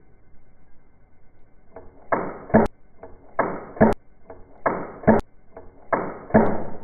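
Airsoft gunfire: four sharp cracks about a second and a quarter apart, each after a short rushing swell.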